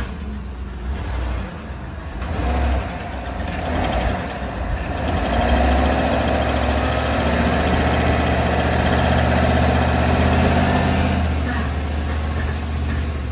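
Chevrolet Tahoe's V8 being power-braked in gear. The engine speed climbs about two seconds in, holds steady under load for several seconds, then eases back toward idle near the end. It is a load test for a suspected skip on cylinder three, and no skip is evident.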